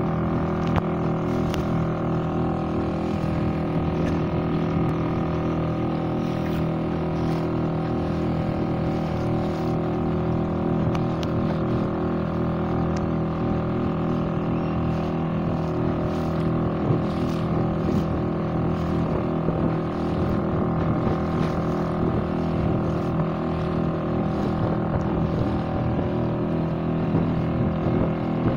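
Small motorboat's engine running steadily at an even speed while the boat is under way.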